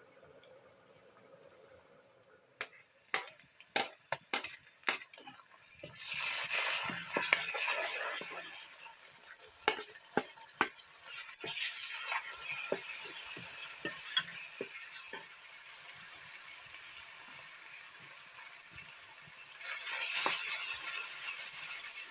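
Cauliflower kofta frying in hot oil. It starts quiet with sharp clicks of a utensil against the pan. A loud sizzle rises suddenly about six seconds in and runs on with scattered clicks and scraping of a stirring spoon. Another surge of sizzling comes near the end.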